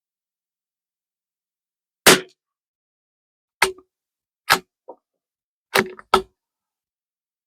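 Sharp cracks of a CZ 457 .22LR rimfire rifle firing, five in about four seconds, the last two close together.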